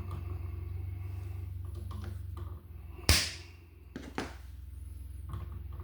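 A few short clicks and knocks from handling wires and hand tools at a receptacle box, the loudest a sharp click about three seconds in, with two lighter ones about a second later, over a steady low hum.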